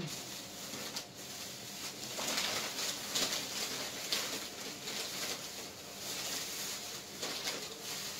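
Eating sounds at a table: a soft crackling rustle with many small clicks as seafood is picked at in a bowl and chewed.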